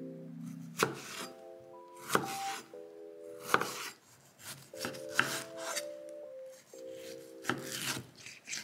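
Chef's knife cutting through tomatoes and striking a wooden cutting board, about six cuts a second or so apart, over light background music with held notes.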